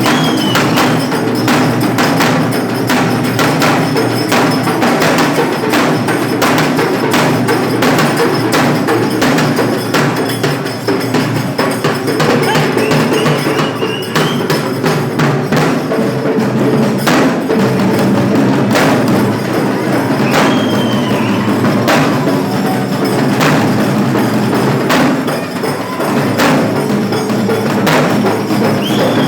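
Loud, fast percussion music made of dense, rapid drum strikes without a break. A few short high notes rise and fall over it.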